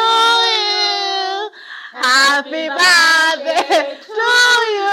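A woman singing a birthday song loudly, close to the microphone, in long held notes split into three phrases with short breaks.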